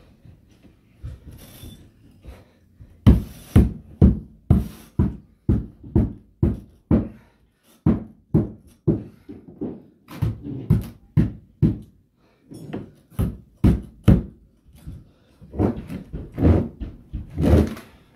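Rapid series of sharp knocks, about two a second, as carpet is fastened onto a stair step with a hand tool, with a short break near the middle and a few longer, rougher blows near the end.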